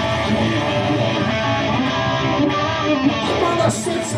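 Live rock band playing an instrumental passage, an electric guitar line to the fore over keyboards.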